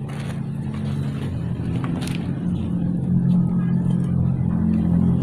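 A motor running with a steady low hum that grows louder over the first three seconds and then holds.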